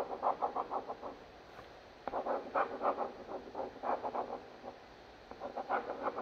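Pen scratching on paper in quick repeated strokes, about five or six a second, in three runs with short pauses between, as spikes are drawn.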